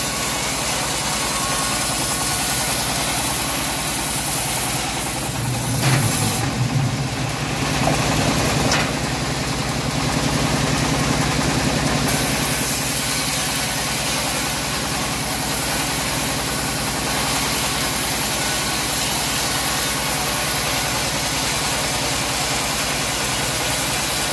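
Homemade band saw mill running steadily while its blade rips a teak plank lengthwise. From about five to twelve seconds in, the machine's hum deepens and grows louder, with a couple of sharp clicks.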